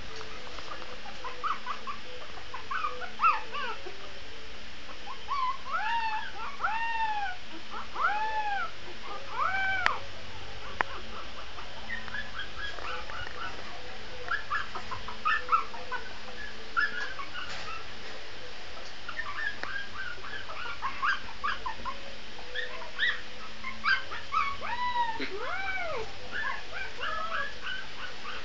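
Shih Tzu puppy crying in a long string of short, high-pitched whines, each rising and falling in pitch, often several in quick succession.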